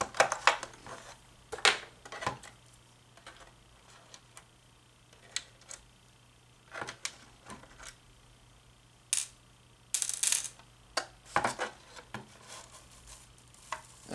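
Scattered clicks, taps and knocks of a plastic solar light housing being handled and opened on a desk, with a couple of short scraping sounds about nine to ten seconds in.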